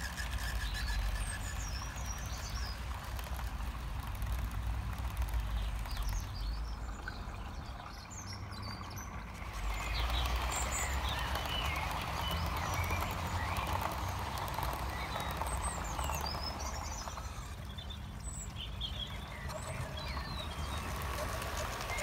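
Birds chirping and singing at dusk over a steady low rumble. About ten seconds in, the rolling noise of a garden-railway model train's wheels on the track rises for several seconds as its coaches pass close by, then fades.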